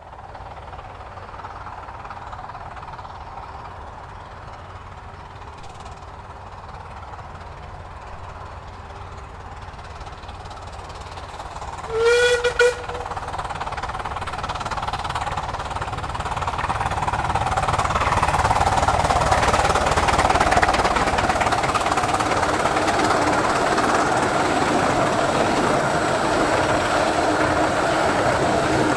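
15-inch-gauge miniature steam locomotive approaching at speed. It gives one short whistle about halfway through, then the train's running noise swells and stays loud as it draws close.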